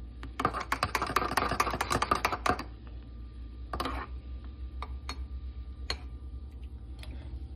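Spoon stirring a latte in a ceramic mug: quick clinks and scrapes against the mug's sides for about two and a half seconds, then a few single taps.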